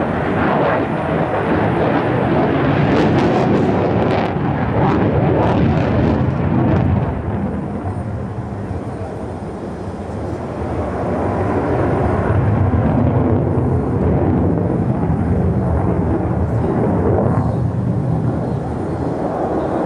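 Lockheed Martin F-35A Lightning II's single Pratt & Whitney F135 turbofan during a display flight: a loud, continuous jet rumble that eases off about eight to ten seconds in and then swells again.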